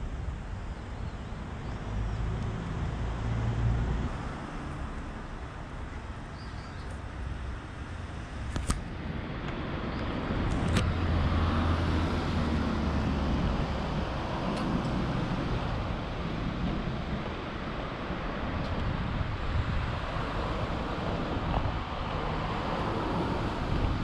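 Street ambience of road traffic: a steady rumble of passing cars that grows louder about ten seconds in, with a couple of sharp clicks.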